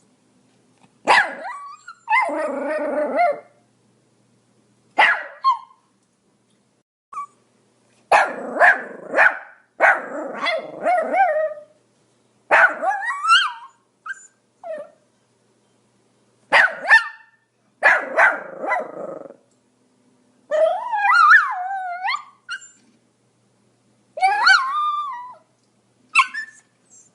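Pomeranian barking in irregular bouts: short sharp barks, some single and some in quick runs of two or three, with a few drawn out and sliding up and down in pitch.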